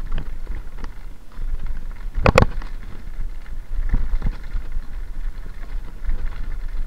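Mountain bike rattling down a rough gravel track: a steady low rumble of tyres and wind on the microphone, with a sharp double knock a little over two seconds in and a couple of lighter knocks around four seconds in as the bike hits bumps.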